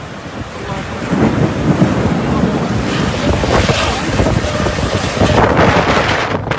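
Strong storm wind gusting against the microphone: a loud rushing noise that swells about a second in and stays strong.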